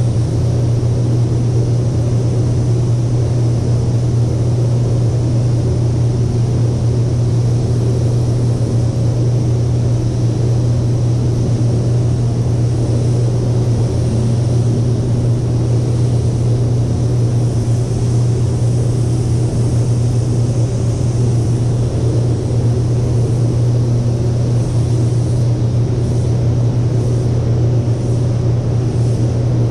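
Paint spray booth's ventilation fans running, a steady low rumble that holds the same level throughout.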